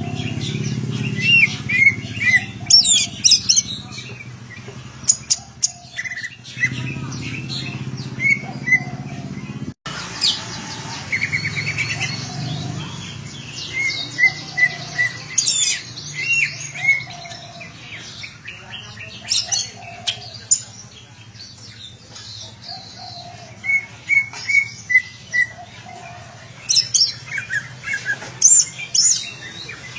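Green leafbird (cocak ijo) calling in a series of short chirps and whistles, over a steady low hum.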